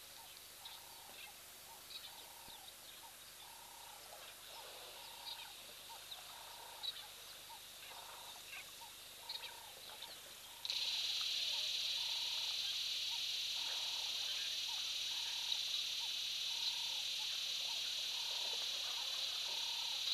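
Bush wildlife ambience with a short animal call repeated about once a second. About halfway through, a steady high-pitched buzz, most likely insects, starts abruptly and becomes the loudest sound.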